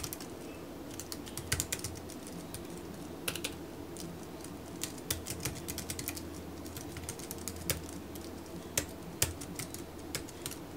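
Typing on an iWerkz foldable Bluetooth keyboard: irregular key clicks, some single and some in short runs, with pauses between.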